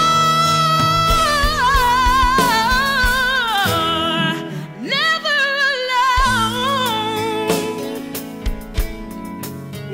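Gospel song: a solo singer holds long notes with vibrato over instrumental backing, in two phrases with a short break about four seconds in.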